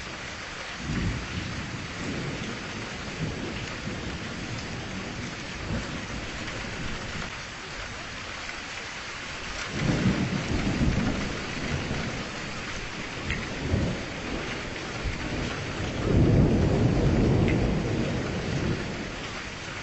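Steady rain with rolling thunder. Low rumbles come about a second in and again around ten seconds, and a longer, louder rumble comes near the end.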